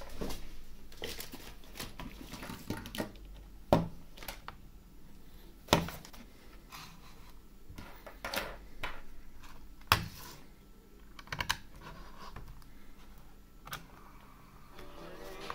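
Scattered sharp clicks and taps of a Sony Walkman WM-DD2 cassette player being handled on a desk, fingers on its plastic case and buttons, with a few louder knocks.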